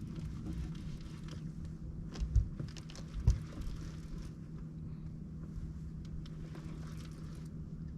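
A boat's motor running with a steady low hum, with two dull thumps about a second apart a little over two seconds in.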